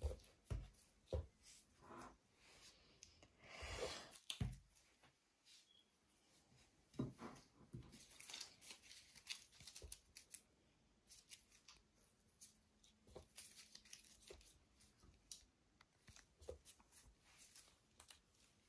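Yeast dough being torn into small pieces by hand and handled on a kitchen scale: faint, scattered soft tearing and tapping sounds, with a longer rustle about four seconds in.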